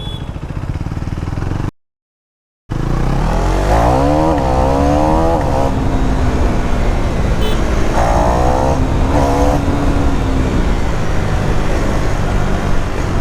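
KTM Duke 390 Gen3 single-cylinder engine under way, with a second of dead silence near the start; its revs then rise and fall in quick sweeps twice before it settles to a steady run.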